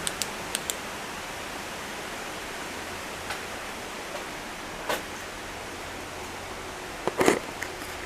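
Steady outdoor hiss with a few short knocks and crunches, the loudest a quick cluster about seven seconds in.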